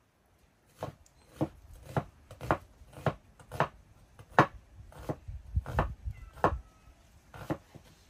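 Chopping on a cutting board: about a dozen sharp strikes, roughly two a second, with a few heavier, deeper ones near the end.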